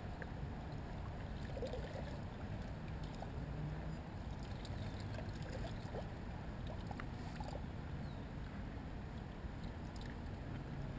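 Kayak drifting on calm water: a steady low rumble with a few faint clicks and taps.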